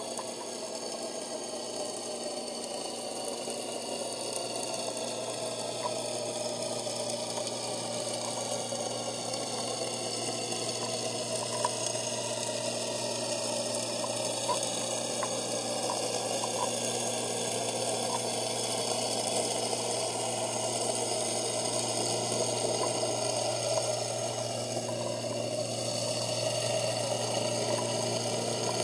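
Boat motor heard underwater, a steady drone whose tones slowly fall in pitch, over a constant low hum, with a few faint clicks.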